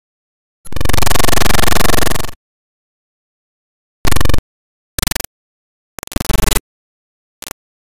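Loud digital glitch and static noise bursts: one long burst of about a second and a half, then a run of short, choppy bursts, each cutting off into dead silence.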